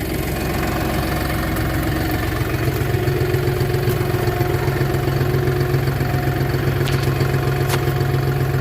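Farm tractor engine running steadily; about two and a half seconds in, a deep low drone comes in and holds, and the engine grows a little louder. Two faint clicks near the end.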